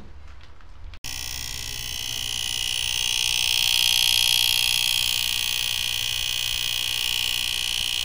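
Powered-up power-supply board of a Fisher PC-19R90 TV giving off a loud, steady high-pitched buzz over a low hum, coming in suddenly about a second in. The noise comes from the area near the relay and is caused by a failed 470 µF 25 V electrolytic capacitor (C622) there, which measures only about 5 µF.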